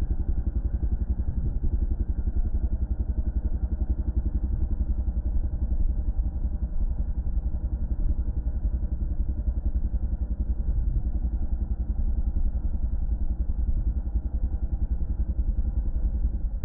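Yamaha dirt bike's single-cylinder engine running steadily at a cruise, recorded from on the bike, a rapid even pulse with no big revs or drops.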